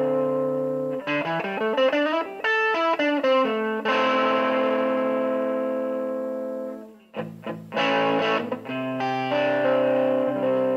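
Overdriven electric guitar, a Fender Stratocaster through a Matamp C7 head and a Marshall 1965A 4x10 cabinet. A held chord gives way to a quick run of single notes, then a long chord is left to ring and fade out. After a brief stop come a few short, choppy chords, and then another held chord.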